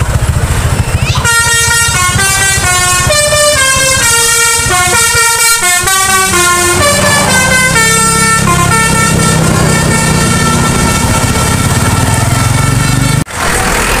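Coach bus's telolet horn playing a quick tune of stepped notes for about eight seconds, then holding one long note, over the low rumble of the bus engine. The horn cuts off abruptly near the end.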